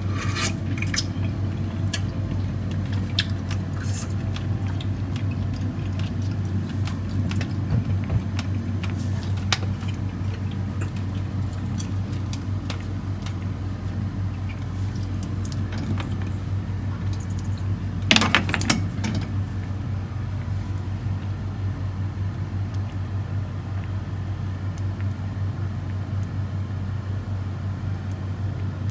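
A steady low hum with scattered light clinks and taps, and a short flurry of clinks about two-thirds of the way through.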